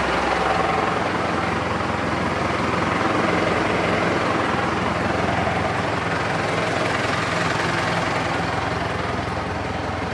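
Valtra N141 tractor's SISU 4.9-litre four-cylinder diesel engine idling steadily.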